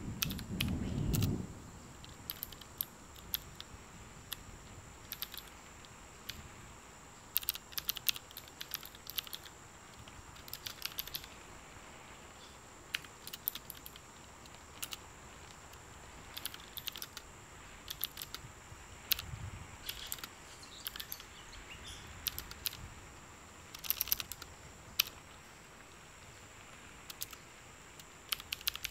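Sporadic keystrokes on a computer keyboard: single clicks and short runs of taps with pauses between them. A low dull thump comes about a second in.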